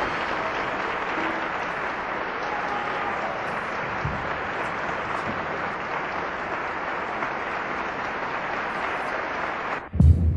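A steady, even hiss of crackling noise on the soundtrack that cuts off suddenly near the end, giving way to a low throbbing hum.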